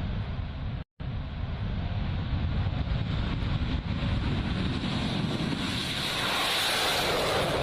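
Jet engine noise of a Sukhoi Su-30MKI fighter, a steady loud rush. It cuts out for a moment about a second in and turns brighter and hissier from about six seconds on.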